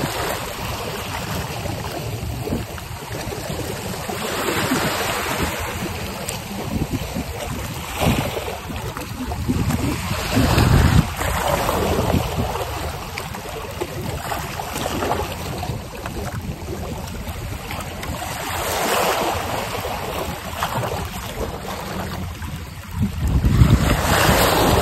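Wind buffeting the microphone over small waves washing against the shore, coming in gusts every few seconds, the strongest near the end.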